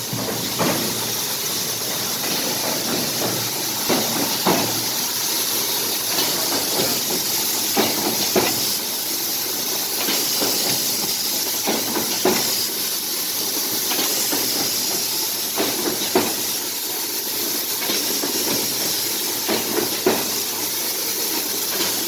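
Three-side paper trimming machine running: a steady hiss with irregular sharp knocks every second or two.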